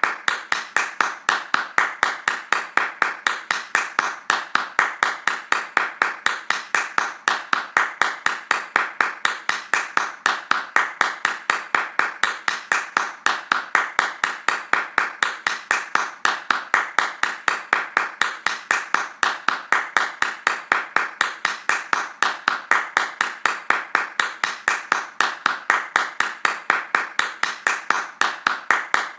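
Hands clapping fast in a steady, even rhythm, each clap a sharp crack.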